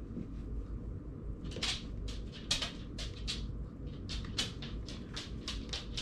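Scissors snipping repeatedly through tough rope: a quick series of short, crisp cuts, about two or three a second, starting about a second and a half in, over a low steady hum.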